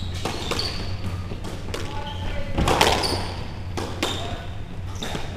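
Squash rally: the hard rubber ball thudding off rackets and the court walls again and again, with a burst of louder hits about three seconds in, over the players' footsteps on the court floor.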